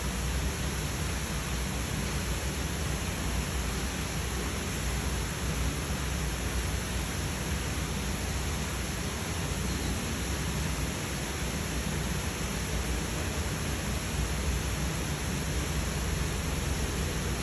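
Steady hissing background noise with a low rumble underneath, unchanging throughout.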